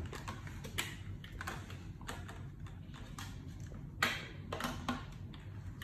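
Plastic clicks and knocks from handling a Black & Decker stick vacuum as the handheld unit is released from the stick body, the loudest click about four seconds in.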